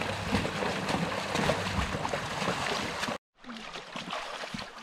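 Shallow river water running over gravel, with splashing from legs wading and a drift boat being dragged through the riffle. About three seconds in the sound cuts out for a moment, then the flowing water goes on more quietly.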